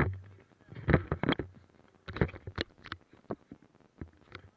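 Irregular knocks, taps and rubbing from the mounted camera being handled and shifted on a parked snowmobile. A low hum stops just after the start.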